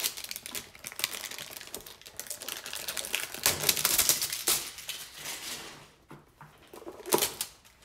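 Trading-card hanger packaging being handled: rapid crackling and clicking for about five seconds that thins out, then one sharp snap near the end.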